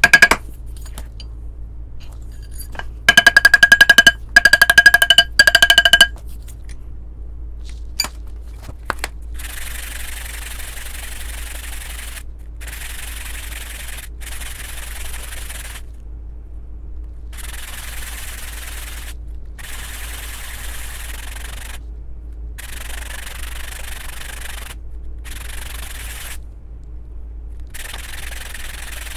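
A quick run of ringing hammer blows on a copper ring on a steel ring mandrel, lasting about three seconds. After that the copper ring is rubbed back and forth on sandpaper laid flat, in repeated strokes of one to two seconds with short pauses, to sand its edge flat so it is not pillowed.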